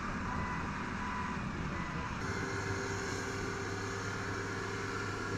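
Vehicle engine running steadily. About two seconds in, the sound changes to a heavy wheel loader's engine running as it works along the ash-covered road.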